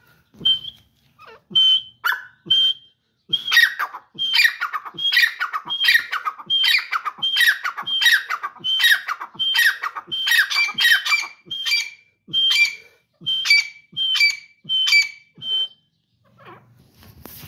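Grey francolin calling: a few single high notes, then a long run of its loud repeated call, about one and a half a second, which stops a little before the end.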